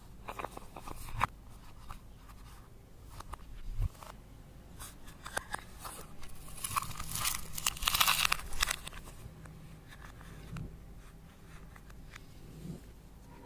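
Slime being squeezed and kneaded by hand, with crunchy crackles and clicks from the crumbled eyeshadow and makeup bits mixed in. The crackling is thickest and loudest about two-thirds of the way through.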